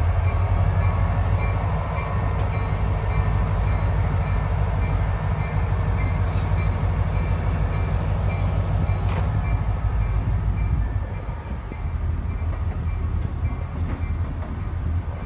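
Brightline passenger train rolling slowly past: a deep, steady rumble from its diesel-electric locomotive and its wheels on the rails, with a thin high whine. A little past the middle the whine dips slightly in pitch and the rumble eases.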